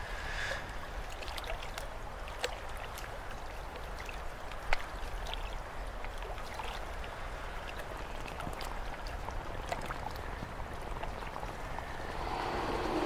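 Steady rushing, hissing noise like running water, dotted with small scattered clicks and crackles, one sharper click about five seconds in; it swells slightly near the end.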